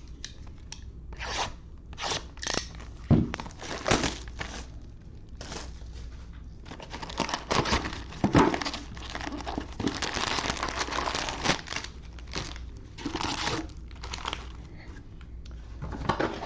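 Plastic wrapping on a sealed box of trading-card cello packs being torn open and crinkled by hand, in short rustles at first and then a longer stretch of steady crinkling about halfway through.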